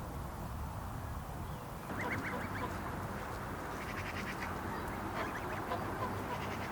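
Waterfowl calling: several quick runs of short honking calls starting about two seconds in, over steady low background noise.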